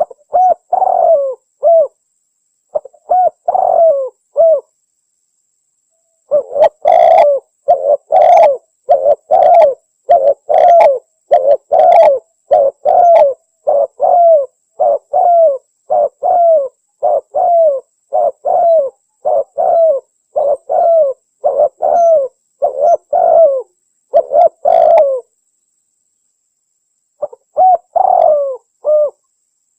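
Spotted dove (tekukur) cooing in the Javanese 'anggunan' song style, in phrases of repeated low coos. Two short phrases open it, then a long unbroken run of coos from about six seconds in to about twenty-five seconds, a pause, and one more phrase near the end.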